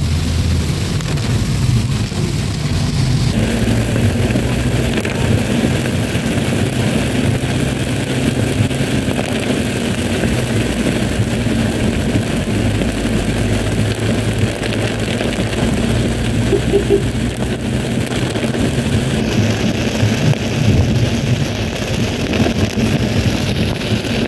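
Car driving through heavy rain, heard from inside the cabin: the engine runs steadily under a constant hiss of rain on the windscreen and wet road. The hiss grows louder about three seconds in.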